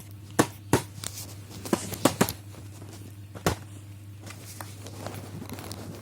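About half a dozen sharp clicks and knocks of small hard objects being handled, in the first three and a half seconds, over a steady low hum.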